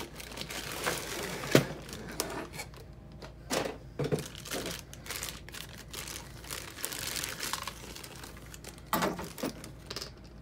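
Clear plastic wrapping bag crinkling and rustling as it is pulled off a model train caboose, along with a cardboard box being opened and handled, with irregular small clicks and knocks.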